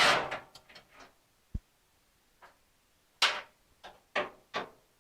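Metal nuts, bolts and hand tools being handled while a car's radiator core support is unbolted. A short rattle dies away at the start, a dull thump comes about a second and a half in, and three sharp clanks follow in the second half.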